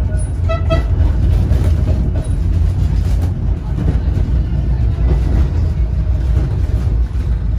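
Blackpool 1937 Brush railcoach tram running along the track, heard from inside the saloon: a steady low rumble of wheels and motors, with two brief high notes about half a second in.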